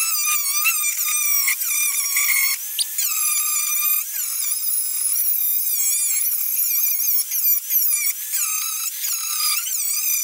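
Electric grinder with a grinding wheel running with a high whine, its pitch dipping and recovering again and again as the wheel is pressed against the metal, grinding down freshly welded steel patches.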